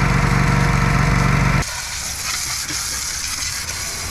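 Small gas engine of a wood splitter running steadily, then cutting off abruptly about a second and a half in. After it, a steady hiss with faint crackling.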